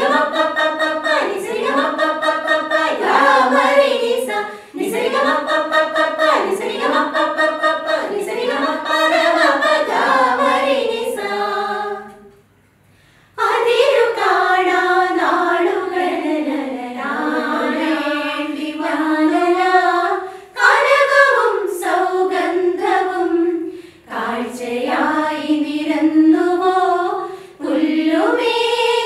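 A women's choir singing a Christmas carol together without accompaniment, in sustained sung phrases. About twelve seconds in they stop for roughly a second, then start the next phrase.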